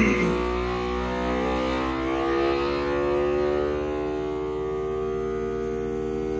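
Countertop vacuum sealer's pump running steadily, drawing the air out of a bag of raw pork for capicola, its hum rising slightly in pitch a couple of seconds in. A brief knock right at the start.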